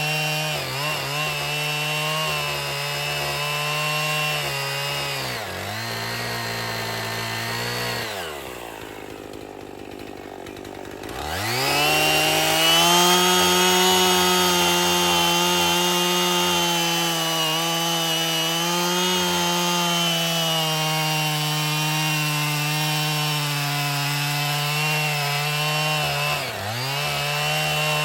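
Husqvarna 55 two-stroke chainsaw running at high revs. The revs drop away about eight seconds in, climb back up about three seconds later and hold, then dip briefly near the end.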